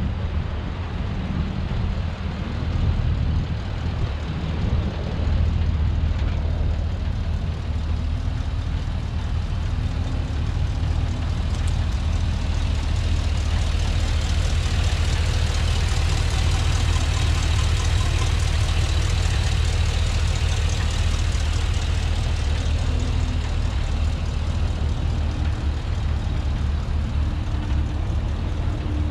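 2008 Isuzu NPR HD's gasoline V8 idling steadily with the cab tilted up. The sound grows brighter and hissier for several seconds in the middle.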